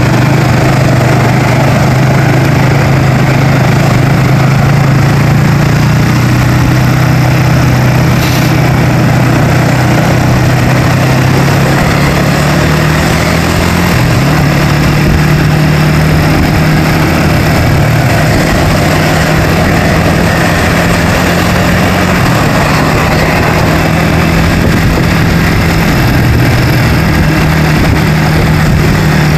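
Vehicle engine running at road speed with steady road noise; the low engine hum shifts in pitch a little before halfway and again near the end.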